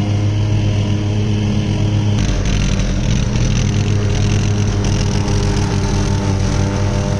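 Castlegarden XT190HD lawn tractor's engine running steadily while it mows. A louder hiss joins about two seconds in and holds.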